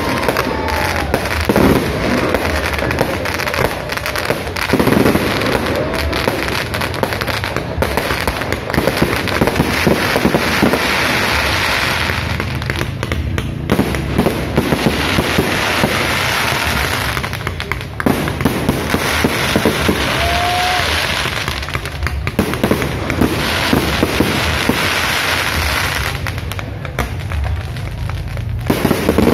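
Fireworks display: continuous popping and crackling of bursting shells and rising rockets, thickening several times into spells of dense crackle.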